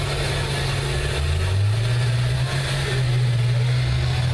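School bus engines running and revving on a derby arena, the engine note stepping up in pitch about a second and a half in.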